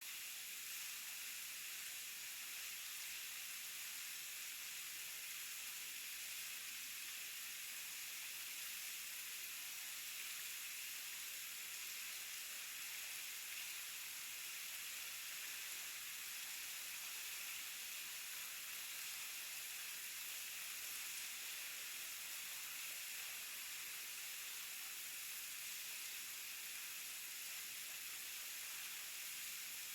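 Waterfall rushing in a steady, unbroken hiss, mostly high-pitched with little low rumble.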